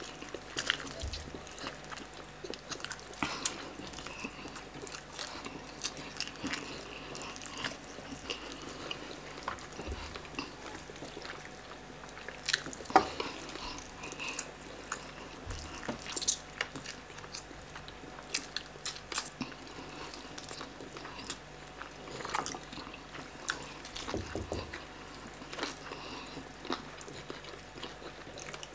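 Two people eating roast chicken by hand: meat tearing off the bone and wet chewing, with many scattered short clicks and smacks. The sharpest click comes about halfway through.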